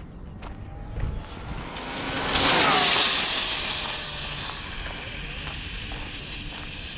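Arrma Typhon speed-run RC car passing at high speed: a high electric motor whine that builds to a loud peak about two and a half seconds in, then drops in pitch and fades slowly as the car runs away down the road.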